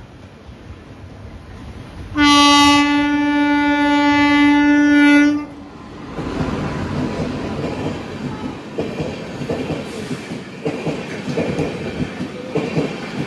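Indian Railways WAP-5 three-phase electric locomotive sounding one long horn blast of about three seconds, starting some two seconds in, as it comes through at high speed. From about six seconds in, the train runs past with a steady rumble and clatter of wheels on track.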